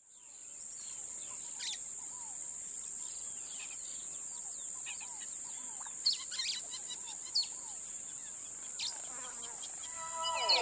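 Amazon rainforest ambience: a steady high-pitched insect drone under scattered bird calls, chirps and whistles, with a sharper call about six seconds in and another about seven seconds in. It fades in at the start.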